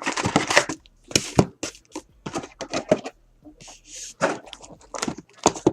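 Plastic wrapping crinkling and tearing as a box of trading card packs is opened: a quick run of sharp crackles and rustles.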